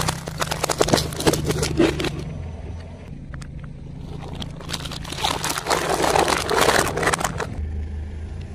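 A car tyre crushing plastic: a run of sharp crackles and snaps in the first two seconds as plastic-wrapped jelly sweet packs burst under the wheel, then another dense stretch of crackling and crumpling about five to seven and a half seconds in as plastic cups are flattened. The car's engine hums low and steady underneath.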